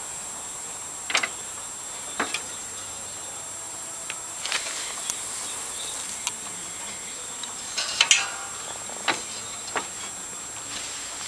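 A steady high-pitched hiss with a thin whine, broken by several short sharp clicks and knocks, the loudest cluster about eight seconds in. No engine is running.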